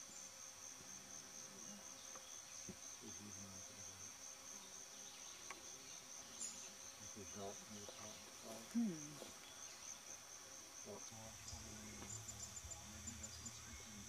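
Faint, steady high-pitched trill of insects, a continuous pulsing buzz.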